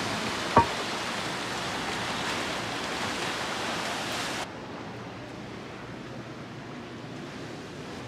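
Rough sea surging and breaking against a rocky cliff base, a steady rushing wash, with one sharp short knock about half a second in. The wash cuts off suddenly after about four seconds, leaving a much quieter outdoor hiss.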